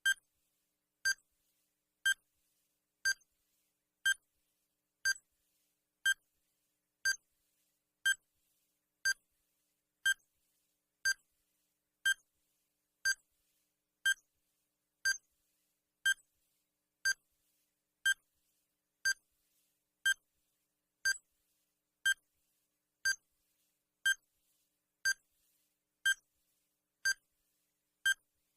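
Digital countdown timer sound effect: short electronic beeps, one each second, evenly spaced and steady.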